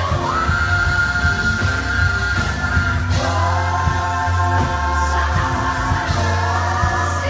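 Live gospel band with a woman singing long held high notes into a microphone over a steady, heavy bass line, heard through the venue's loudspeakers. One note is held for about three seconds, then a second long note follows.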